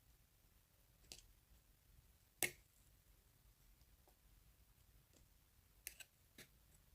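Near silence broken by a few faint, sharp clicks from slime being handled: one about a second in, the loudest about two and a half seconds in, and three close together near the end.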